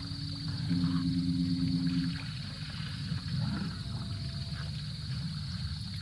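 Elephants rumbling, a low steady pitched drone that rises slightly about a second in and stops about two seconds in, over low rumbling noise. A steady high insect trill runs underneath.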